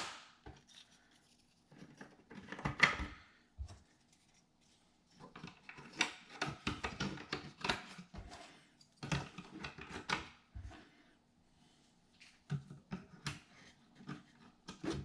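Hard crafting shape templates clicking, knocking and scraping as they are slid into slots in a wooden storage rack. The clatter comes in several short clusters, about four in all, with brief pauses between them.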